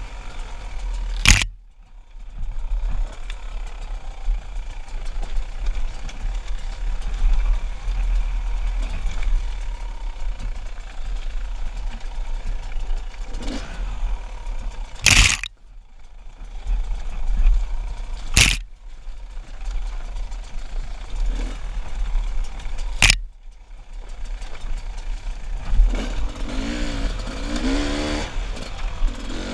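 Enduro dirt bike engine running under way over rough trail, mixed with heavy wind rumble on the microphone. Four sharp knocks cut through at irregular intervals, and near the end the engine's note rises and falls clearly as the rider works the throttle.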